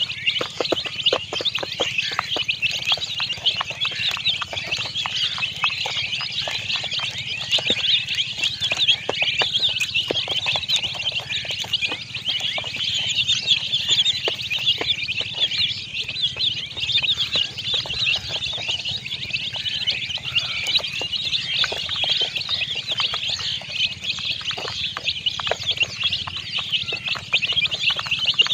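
A flock of baby chicks peeping nonstop, many high-pitched chirps overlapping into one continuous chorus, with scattered light taps beneath it.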